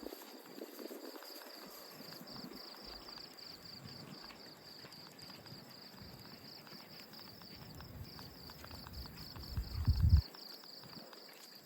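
Insects chirping steadily, a fast even high-pitched pulsing like crickets, over faint outdoor background noise. About nine to ten seconds in comes a brief loud low rumble.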